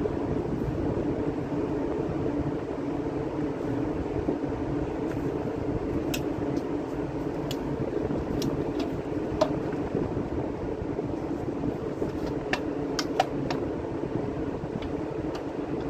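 Steady drone of the ship's machinery. Over it, a series of light clicks and knocks, from about six seconds in until near the end, as the compass binnacle's hood is lifted off and set back on.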